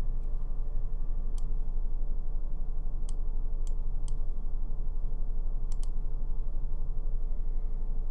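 Computer mouse clicking about six times, including a quick double click, over a steady low electrical hum.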